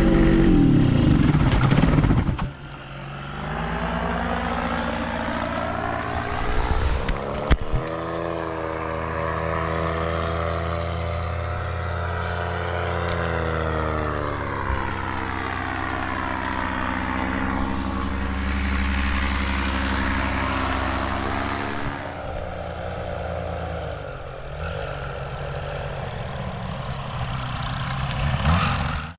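Paramotor engine idling behind its propeller, its pitch rising slowly and later dropping back as the throttle changes.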